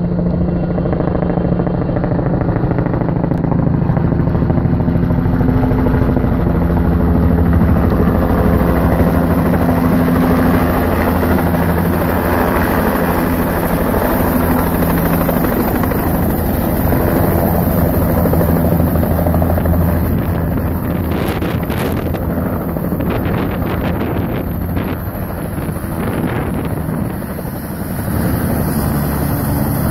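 Single-engine turbine helicopter flying in and landing: a steady rotor and engine drone with a high turbine whine, which slides down in pitch a few seconds before the end once it is on the pad. Gusts of rotor downwash buffet the microphone a little after the middle.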